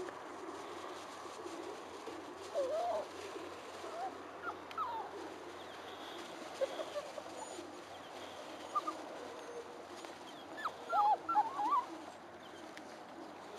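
Braque du Bourbonnais puppies giving short, high whines and yips, scattered through, with a quick run of them about eleven seconds in.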